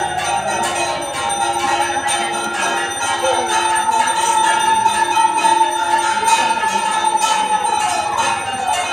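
Puja bell ringing continuously, quick repeated strokes blending into a sustained ringing, with one strong held tone that slides down in pitch near the end.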